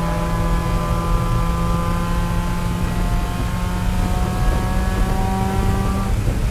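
Race car engine at full throttle, heard from inside the cabin, its pitch climbing steadily as it pulls from about 4,900 to 5,800 rpm, over a steady low cabin drone. About six seconds in, the note breaks off.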